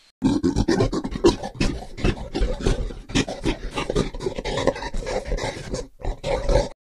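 Brown bears growling and roaring harshly in a continuous, ragged run while play-fighting, with a brief pause near the end.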